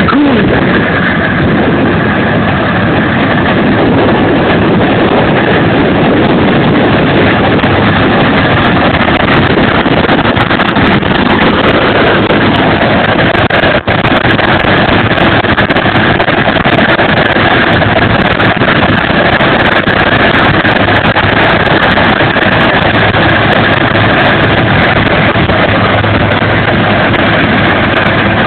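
Case IH 8120 combine harvester running loud and steady as it harvests, its engine and threshing machinery droning while the 10-metre header cuts the crop close by.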